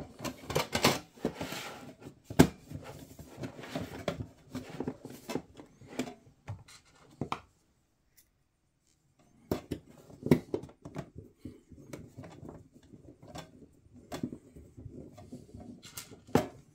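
Metal lid of a computer power supply case being pushed and pressed into place, with sharp metallic clicks, knocks and scraping. After a pause of about two seconds, a screw is driven into the case with a hand screwdriver, with irregular clicks and scraping.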